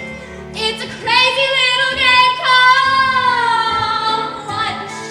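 A young female voice singing a musical-theatre number over instrumental backing, holding one long note for about three seconds from about a second in.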